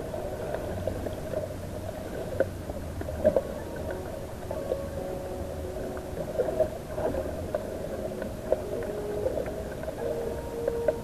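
Sound picked up underwater by a camera held just below the surface: a steady muffled hum with faint held tones that shift in pitch now and then, and scattered sharp clicks and crackles.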